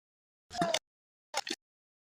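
Two brief snippets of a young girl's voice, a short pitched sound about half a second in and a quicker one a little after a second, with dead silence between them.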